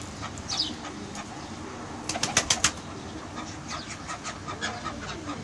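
Domestic pigeons cooing low, with a quick run of sharp clicks about two seconds in and fainter scattered ticks after.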